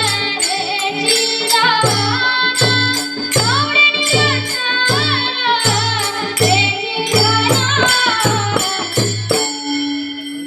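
Marathi devotional bhajan: a voice sings an ornamented melody over a steady beat of a low drum, about two strokes a second, and bright jingling percussion such as hand cymbals. The drum drops out about a second before the end while the singing carries on.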